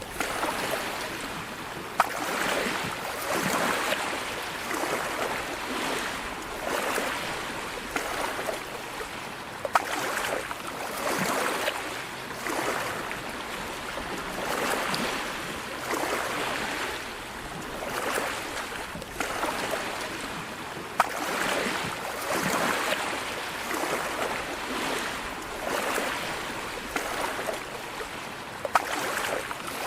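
Sea waves washing onto the shore, the surf swelling and drawing back every few seconds. A few sharp clicks stand out above the wash, four times in all.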